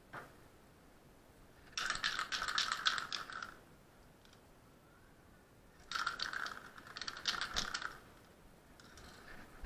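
An aerosol spray can being shaken, its mixing ball rattling in rapid metallic clicks, in two bursts of about a second and a half each.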